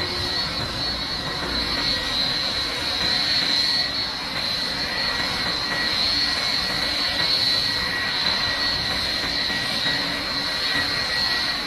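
Twin-engine jet airliner's turbofans running at taxi power: a steady high-pitched whine over a broad rush of engine noise.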